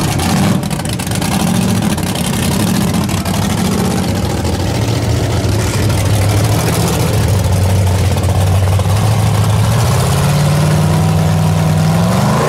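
Off-road truck engine running at a steady low speed, then starting to rev, its pitch rising near the end.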